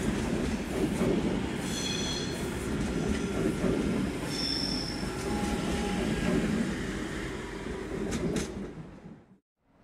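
Flytoget airport express electric train running past, a steady rumble of wheels on rail with brief high wheel squeals about two and four and a half seconds in. A few sharp clicks come as the train clears, then the sound cuts off abruptly near the end.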